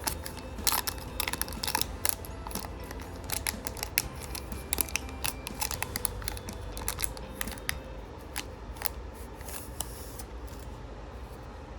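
Trading cards being handled and flicked through by hand: a run of sharp, irregular clicks and snaps of card stock, fewer near the end.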